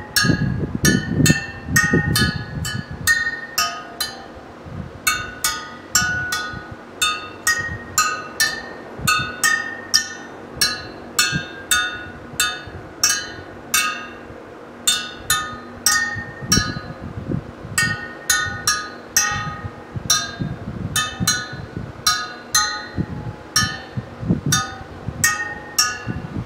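Wire spokes of a Yamaha Twin Jet motorcycle front wheel tapped one after another, each giving a short metallic ping, about two a second with a couple of brief pauses. It is a ring test of spoke tension, and the pings sound pretty much the same.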